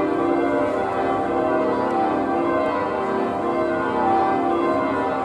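Wells Cathedral's church bells pealing, many bells struck one after another, their ringing tones overlapping.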